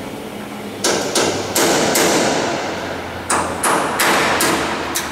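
About nine hammer blows on the metal floor framework of a Lancaster bomber's rear fuselage, in two quick runs starting about a second in, each ringing on afterwards, as the floor section is knocked out.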